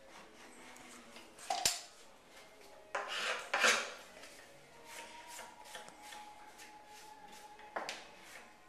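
Rag and hand tool working at a wooden window sill: a sharp click about one and a half seconds in, a couple of scratchy rubbing and scraping strokes a little later, and another sharp click near the end.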